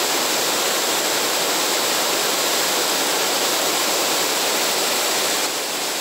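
A waterfall cascading over rock ledges into a pool: a steady, loud rush of water that drops a little in level near the end.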